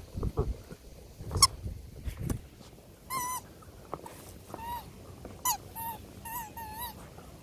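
Rubber Easter-egg squeaky toys squeaking as corgi puppies bite down on them: about six short squeaks with a wavering pitch in the second half. Before them come chewing and knocking noises, with one sharp knock about a second and a half in.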